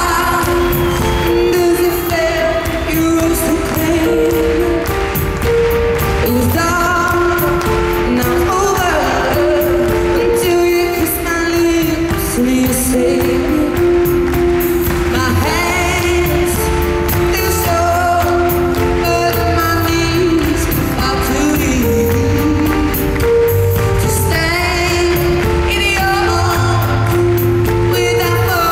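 A woman singing a pop ballad live into a microphone over full band accompaniment with bass and drums, in a large arena's reverberant sound, recorded from within the crowd.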